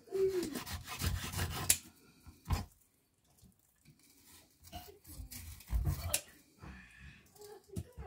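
Knife scraping and rubbing on a wooden cutting board while perch are filleted, with a few sharp knocks of the blade on the board.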